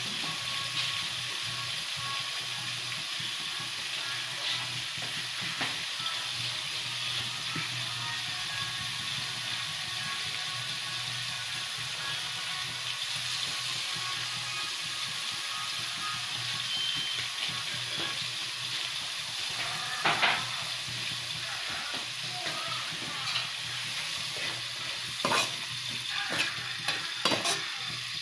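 Chopped leafy greens sizzling steadily in a non-stick frying pan. In the last several seconds a spatula stirs them, knocking and scraping against the pan.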